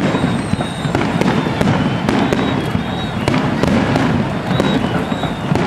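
Fireworks display going off: sharp bangs and crackles in quick, irregular succession over a continuous rumbling wash.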